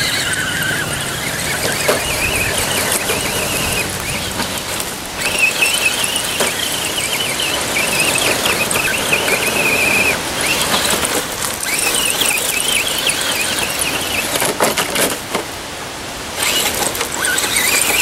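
Electric motor and gearbox of a radio-controlled scale rock crawler whining as it climbs over loose rocks, in stretches of a few seconds with short breaks, the whine wavering in pitch with the throttle.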